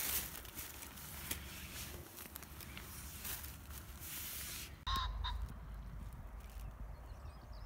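Thin plastic bag crinkling and rustling as moss is handled in it. About five seconds in, two short bird chirps, with a low rumble underneath.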